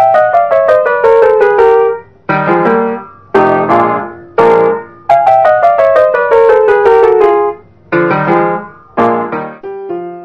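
Background piano music: quick descending runs of notes alternating with struck chords, turning softer and more even near the end.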